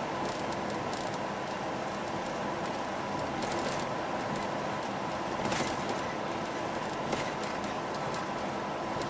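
Steady road and engine noise inside a moving truck's cab, with a steady hum and a few brief rattles.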